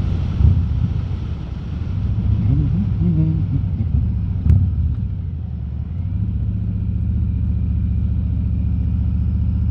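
Harley-Davidson V-twin motorcycle engine running on the road, heard through a microphone inside the rider's helmet, with one sharp click about four and a half seconds in; from about six seconds on it settles into a steady low drone.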